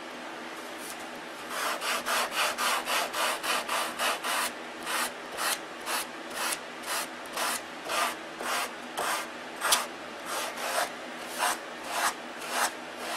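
Sanding block rubbed back and forth over a balsa block wingtip, in even strokes about two to three a second that begin a second or two in. The strokes sound hollow, which the modeller takes as the sign that the tip is getting thin.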